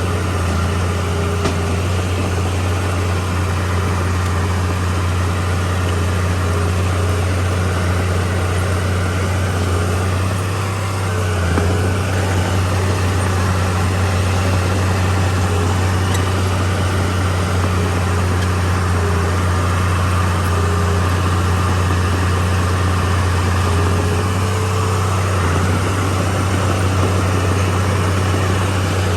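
Heavy diesel engine of a Komatsu D31P crawler bulldozer running steadily with a deep, even hum, easing slightly about ten seconds in and picking up again about a second later.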